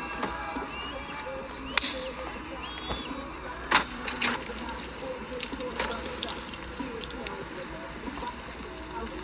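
Steady high-pitched insect chorus, with one sharp crack of a golf club striking a teed ball about four seconds in, the loudest sound here.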